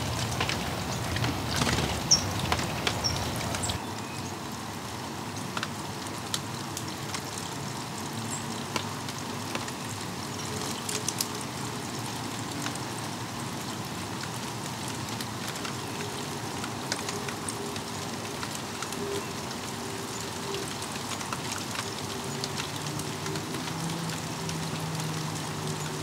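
Steady rain falling on garden foliage, with scattered individual drops tapping close by. It is louder and denser for the first few seconds, then settles to an even patter.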